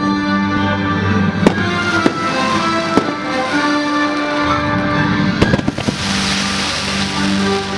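Fireworks going off over a fireworks show's music soundtrack: single sharp bangs about one and a half, two and three seconds in, a quick cluster of bangs a little after five seconds, then a second or so of hiss.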